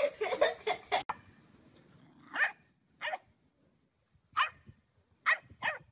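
Toy electronic keyboard notes struck in a quick jumble as a dog presses the keys. After a cut, a dog barks five times in short single barks, the last two close together.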